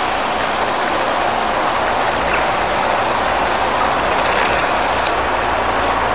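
Steady traffic noise with a low engine hum.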